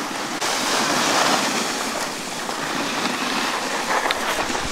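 Skis sliding and scraping over packed snow on a downhill run, a steady hiss with wind on the microphone that gets louder about half a second in.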